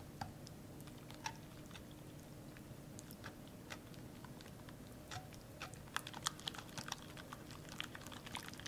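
Pink silicone whisk stirring mashed banana, egg and yogurt in a glass bowl: soft wet squelches and light ticks against the glass, scattered at first and coming faster and denser in the second half.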